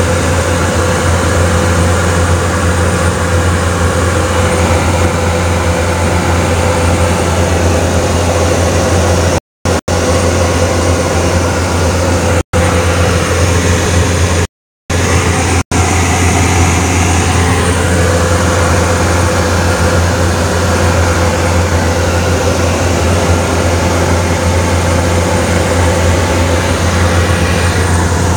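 Steady engine and propeller drone of a light aircraft in flight, heard inside the cabin, with a deep hum and a constant mid-pitched tone. It cuts out abruptly for a moment about three times in the middle.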